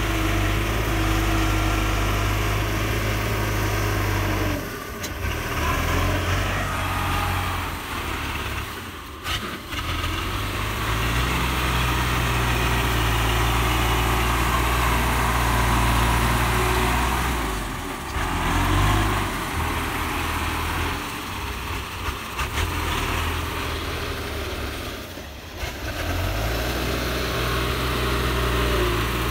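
Belarus MTZ-820 tractor's four-cylinder diesel engine running steadily, a low drone with a few brief dips in level, as the tractor sits stuck in deep mud.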